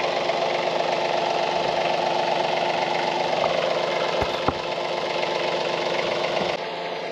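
Compact tractor's diesel engine running steadily while its loader holds a boom pole. Two sharp metal knocks come a little after four seconds in, and the engine sound drops off abruptly near the end.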